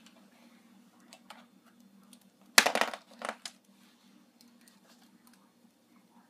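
Plastic toy pieces being handled. A few small clicks, then a short loud clatter about two and a half seconds in that lasts under a second, over a faint steady hum.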